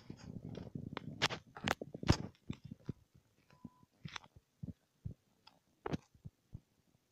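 A kitten scrabbling and playing on an office chair: rustling and scratching for the first two seconds or so, then scattered light clicks and taps.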